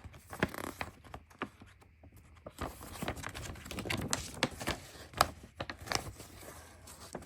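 Folded paper poster rustling and crinkling as it is handled and unfolded, with many irregular short crackles and snaps.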